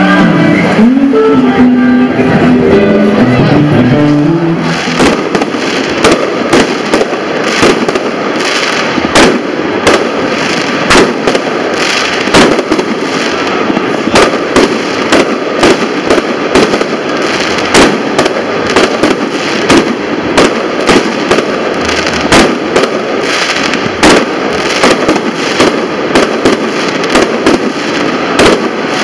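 A fireworks display: sharp bangs in quick succession, about one to two a second, over a steady rushing noise. They start about five seconds in, as music fades out.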